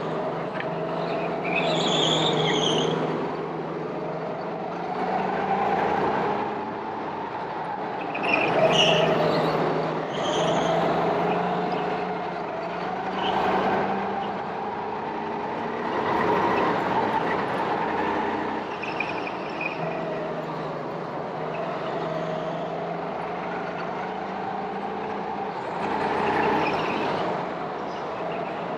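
Go-kart motor running continuously, its pitch and loudness rising and falling in swells every few seconds as it speeds up and slows down.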